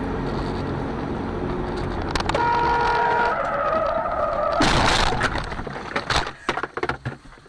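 Car engine and road noise heard from inside the cabin. About two seconds in, tyres begin screeching with a falling pitch. About five seconds in comes a loud crash of the collision, followed by scattered knocks and rattles.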